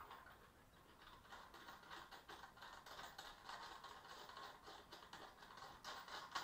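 Faint, irregular light clicks and rattles of small steel hardware handled by hand: the nut, flat washer and lock washer on one of a bench vise's mounting bolts being reworked.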